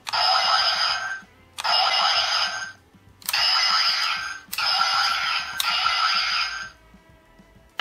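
Electronic sound effect from a DX Abaranger toy's built-in speaker, playing in five buzzy bursts of about a second each, the last three back to back.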